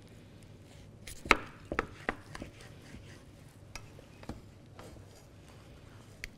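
Wooden spatulas knocking against a pan as a whole roast chicken is shifted in it: a few scattered sharp knocks, the loudest about a second in.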